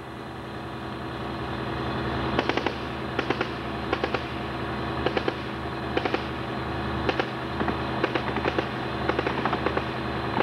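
Leopard tank's engine running steadily and growing louder as it approaches, with sharp cracks coming in short bursts of two or three from about two seconds in.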